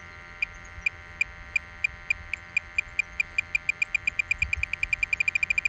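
Variotec 460 tracer gas detector beeping: a short high beep that starts about half a second in at two or three a second and speeds up to a rapid run near the end. The faster beeping signals a rising tracer gas reading as the probe nears the water leak.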